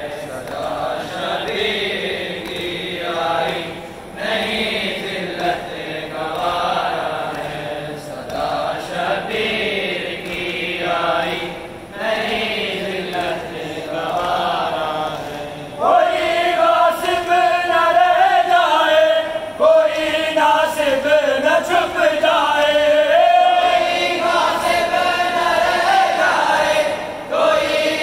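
Voices chanting a Muharram noha (lament for Imam Husain) in phrases of about four seconds. About halfway through, the chant grows louder and more sustained, with long, wavering held notes.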